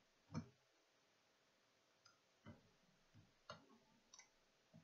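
Near silence broken by a handful of faint, scattered clicks and taps from hands handling and prying at an all-in-one PC's sheet-metal shield plate and plastic chassis, as the plate is worked loose.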